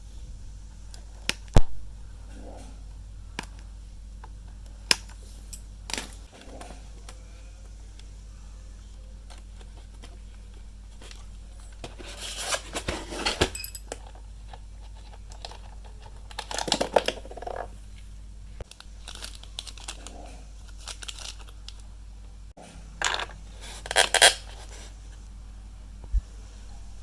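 Small handling noises of a work session on a radio-control transmitter: scattered sharp clicks and knocks, and several short bursts of rustling and scraping, over a steady low hum.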